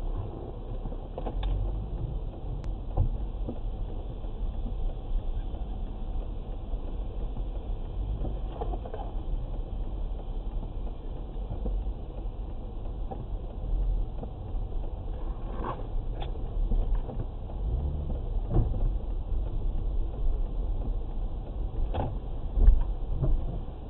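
Low, steady rumble of a car's engine and tyres heard from inside the cabin as it creeps at walking pace over a wet, slushy road, with a few scattered knocks and clicks, the loudest near the end.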